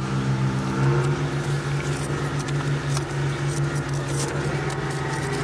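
An engine running steadily at idle, a constant low hum, with a few light metallic clicks and rattles of equipment being handled.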